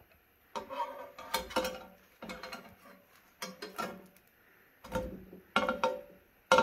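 Metal spatula knocking and scraping against a ridged grill pan as bread slices are shifted and lifted: about ten sharp, irregular clinks, each with a brief metallic ring.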